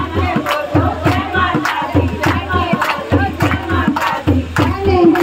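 Group of women singing a Hindu devotional kirtan in chorus, accompanied by dholak drum beats and steady sharp rhythmic claps.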